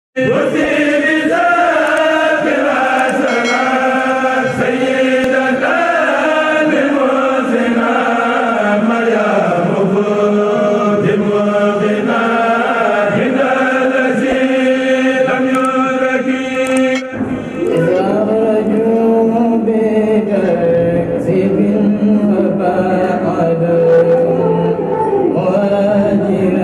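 Voices chanting devotional verses in a slow, drawn-out melody. About 17 seconds in it cuts abruptly to a single man's voice chanting into a microphone.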